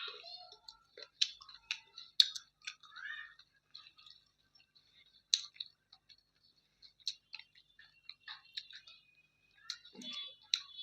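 A person chewing food close to the microphone, with irregular wet smacks and sharp mouth clicks.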